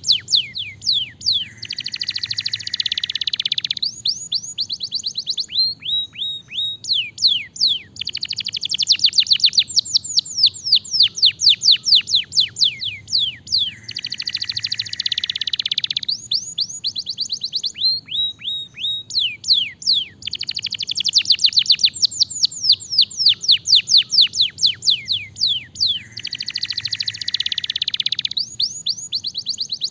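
Canary singing: rapid trills of sharply falling whistled notes alternating with dense buzzy rolls, in phrases that repeat about every six seconds.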